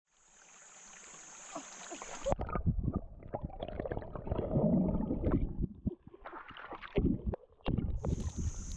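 A steady, high insect drone for about two seconds, which cuts off abruptly. Irregular splashing and rustling in water with scattered knocks follow, and the insect drone returns near the end.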